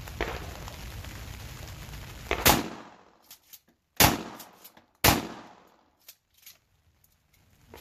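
12-gauge pump-action shotgun firing: three loud shots, the first about two and a half seconds in and the next two about a second and a half and then a second later, each trailing off in a short echo. Fainter clicks come between them.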